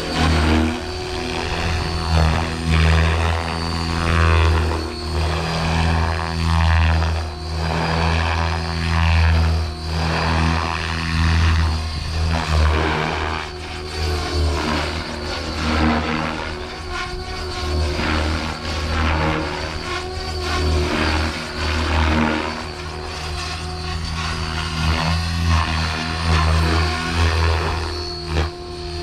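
Oxy5 electric RC helicopter flying aerobatics: its main rotor blades whoosh and swell in loudness every second or two as it maneuvers, over a steady high whine of the electric motor and drive.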